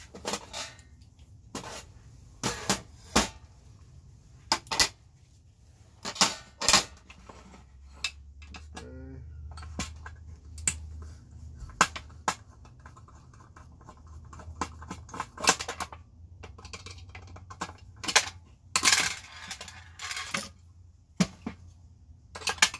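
Irregular sharp metallic clicks and clinks of a screwdriver and small loose parts against a cast aluminum halogen security-light housing as it is taken apart.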